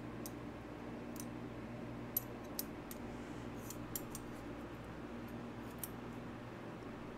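Small metallic clicks and taps of a Civivi Vision FG folding knife's steel liner and parts being handled and pressed together by hand, a handful of sharp ticks spread out over a low steady hum.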